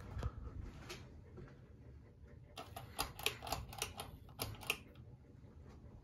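Ceiling fan running with a low steady hum, broken midway by a quick, irregular run of about a dozen light clicks lasting about two seconds.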